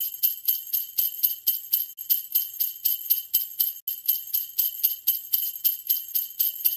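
Jingle bells shaken in a steady rhythm, about four shakes a second.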